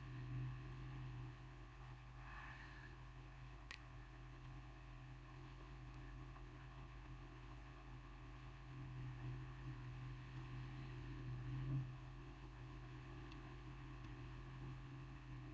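Faint steady low hum of room tone from a computer recording setup, with one faint click about four seconds in.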